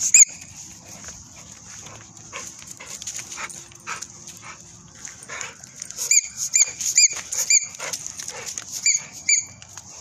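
American bully dog whining in short, high-pitched squeaks: two at the start, then a quick run of about eight between six and nine and a half seconds in.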